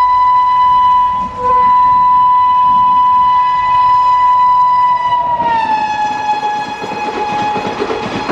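Express train's horn sounding one long blast with a brief break about a second in. Its pitch drops about five and a half seconds in as the locomotive passes at speed, and the rattle of the coaches on the rails takes over.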